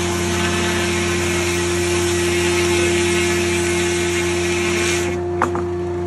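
Corley circle sawmill blade cutting eastern red cedar: a steady rushing cut over the mill's constant hum. About five seconds in, the blade leaves the wood and the cutting noise drops away to the blade spinning free, followed by a brief knock.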